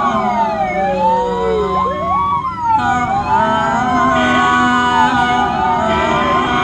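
Ambulance siren wailing, its pitch sweeping up and down in several overlapping, crossing sweeps, over a steady low hum.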